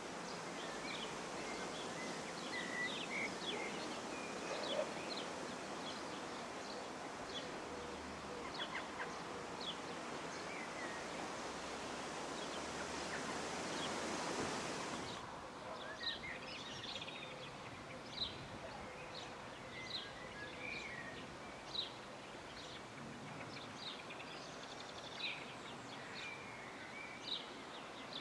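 Small birds chirping repeatedly over a steady background noise. The noise drops away suddenly about halfway through, leaving the chirps over a quieter background.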